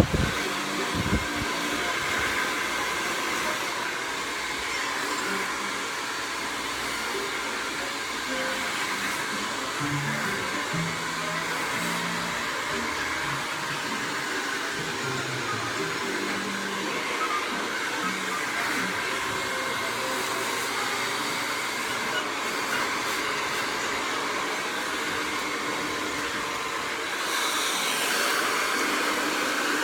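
Hair dryer blowing steadily, getting a little louder near the end.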